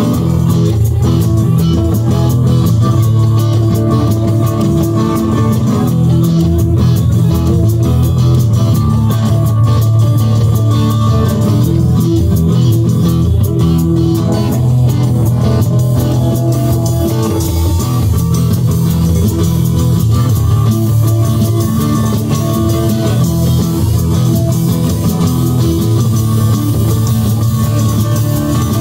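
Live rock band playing, led by two electric guitars over bass and drums, loud and without a break.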